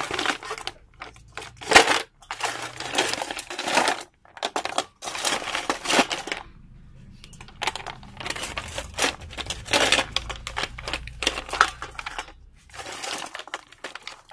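Clam shells clattering and grinding against one another and against a metal bowl as a hand stirs through them, in repeated bursts with short pauses.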